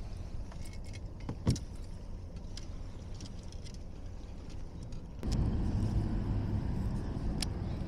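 Small clicks and knocks of fishing gear being handled in a kayak, the sharpest about a second and a half in. About five seconds in, a steady low rumble starts suddenly and carries on.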